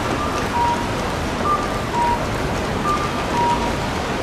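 An electronic pedestrian-crossing signal chirps a two-note call, high then low, like a cuckoo, the pair repeating about every second and a half. Under it runs a steady outdoor noise haze.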